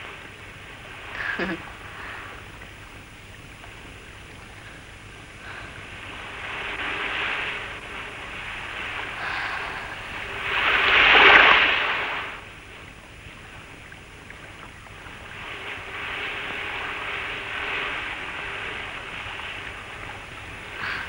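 Sea surf on a sandy beach: waves breaking and washing up the shore, swelling and falling back several times, with the biggest wave about ten to twelve seconds in.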